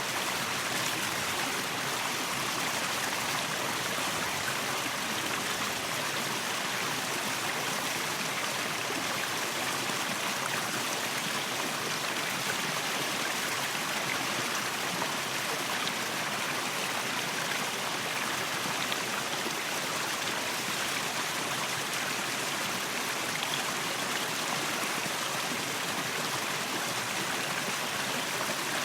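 Waterfall: water falling and splashing in a steady, unbroken rush, with most of its sound in the upper range and little deep rumble.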